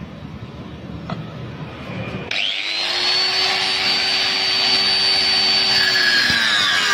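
Electric angle grinder with a thin cutting disc switched on about two seconds in, spinning up with a rising high whine and running steadily. Near the end the whine drops as the disc starts cutting into the steel plate.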